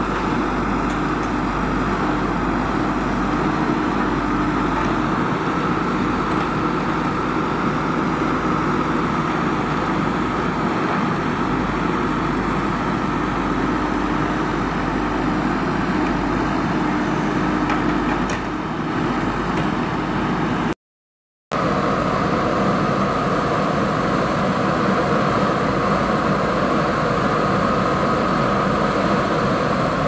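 JCB backhoe loader's diesel engine running steadily while the machine digs. The sound cuts out for under a second about two-thirds of the way through, then carries on the same.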